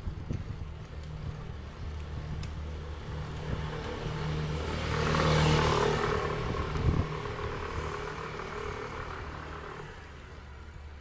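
A vehicle going by, its rushing noise swelling to a peak about halfway through, with one sharp knock just after.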